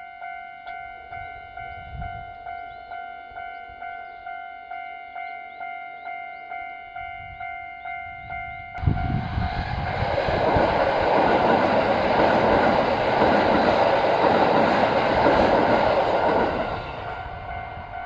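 Japanese railway level-crossing alarm ringing its electronic bell about twice a second. About nine seconds in, a Kintetsu Osaka Line train suddenly rushes past over the crossing for about seven seconds, its noise drowning the bell, then dies away while the bell keeps ringing.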